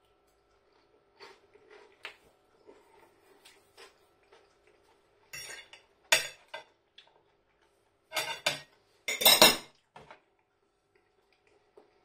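Metal cutlery scraping and clinking against a ceramic plate in four short bursts between about five and ten seconds in, the last the loudest, with fainter small clicks before them.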